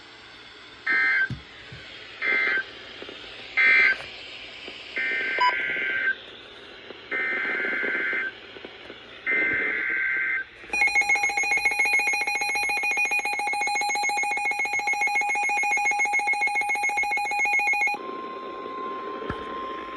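Emergency Alert System broadcast tones between two warnings. First come three short bursts of screechy SAME data tones, the end-of-message code. Then three longer data bursts, the header of the next alert, followed by the harsh two-tone EAS attention signal held about seven seconds, and a single quieter steady tone over hiss near the end.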